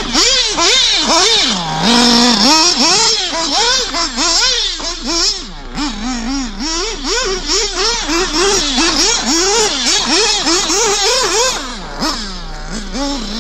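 Nitro RC buggy's FX two-stroke glow engine running at high revs, its pitch swinging up and down over and over as the throttle is opened and backed off. The revs drop low briefly about two seconds in and again near the end.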